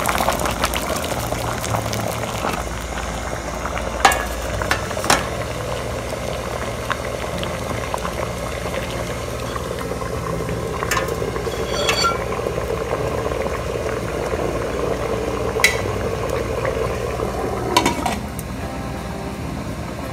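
Water at a rolling boil in an electric hot pot, bubbling steadily, with several sharp clinks of metal and china as a steamer tray and a dish are set in the pot. Near the end a lid goes on and the bubbling turns fainter.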